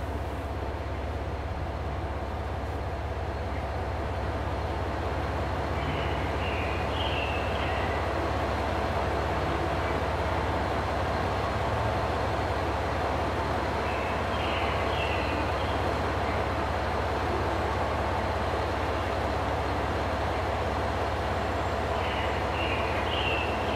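Steady railway station and street ambience: a constant low hum and rumble, with a short high chirping sound that repeats about every eight seconds.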